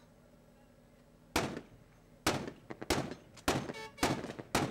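Gunfire: a single sharp shot about a second and a half in, then further shots coming quicker and quicker, several a second by the end.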